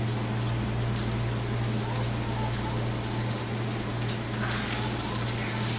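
Steady sizzling hiss of food frying in a hot pan, over a constant low hum.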